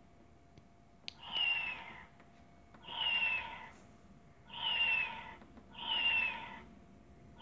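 Interactive plush kitten toy sounding a recorded meow through its small speaker four times in a row, each call the same short falling cry. A single click comes just before the first meow.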